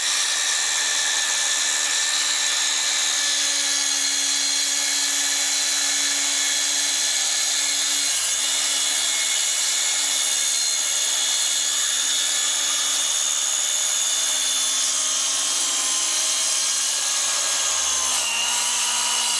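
Milwaukee FUEL cordless circular saw cutting through a composite cabinet panel: a steady high whine of the blade in the material, dipping slightly in pitch near the end as it works through the cut.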